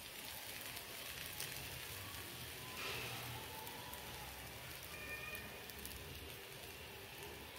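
Faint, steady sizzle of a puran poli flatbread cooking dry on a hot tawa griddle, with a few soft crackles.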